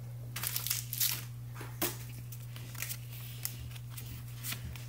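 Pokémon trading cards being handled and slid apart in the hands: a string of irregular soft rustles and flicks, busier in the first couple of seconds, over a steady low hum.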